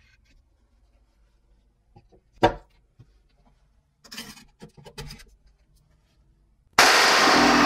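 Ring magnets and a wooden board handled on a wooden bench: one sharp knock about two and a half seconds in, then a second or so of scraping and clicking as the magnets are fitted into the board's holes. Near the end an electric jigsaw starts abruptly, cutting wood with a loud, steady noise.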